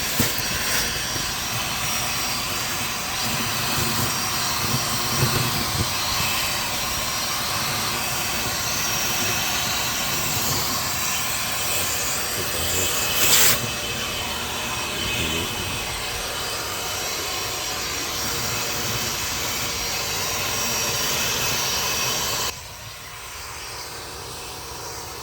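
Shop vac motor running steadily, with a brief louder burst of suction about halfway through, then switched off and cutting out abruptly a few seconds before the end.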